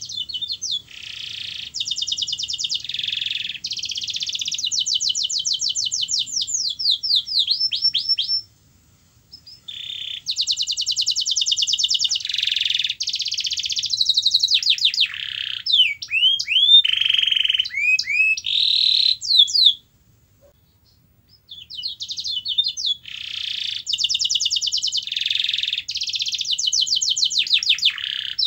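Canary singing long phrases of fast rolling trills and quick sweeping whistled notes, breaking off twice for a second or so.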